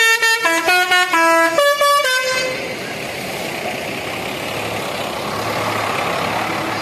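A bus's multi-tone 'telolet' air horn plays a quick tune of several stepping notes for about two and a half seconds. Then the coach's diesel engine runs on steadily as it pulls away.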